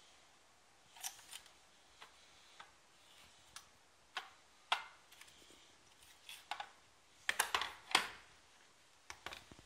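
Hard plastic toy parts clicking and knocking as a Schleich Skull Trap playset is handled, its plastic dinosaur skull being fitted onto its green base. The knocks are scattered and irregular, with a louder cluster about seven to eight seconds in.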